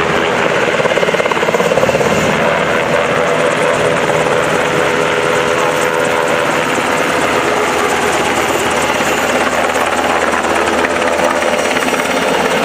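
UH-60 Black Hawk helicopter lifting off and climbing away overhead. Its main rotor and twin turbine engines make a loud, steady, continuous roar.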